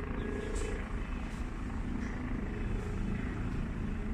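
Distant helicopter hovering, heard as a steady low drone, with a few faint short hisses about a second apart.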